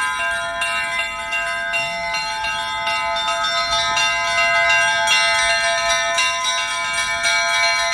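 Russian Orthodox church bells ringing a peal: several higher-pitched bells struck in quick overlapping strokes, several a second, their tones ringing on together without a pause.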